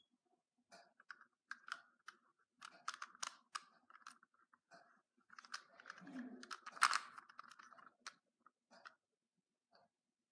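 Rubik's cube being handled and turned: quiet irregular plastic clicks and short rattling scrapes as the layers are twisted, busiest and loudest about two thirds of the way through.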